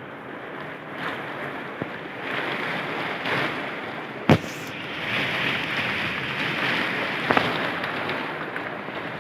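Heavy rain pouring down in gusts of wind, swelling louder a couple of seconds in and again around the middle. A single sharp crack about four seconds in is the loudest sound, with a smaller one a few seconds later.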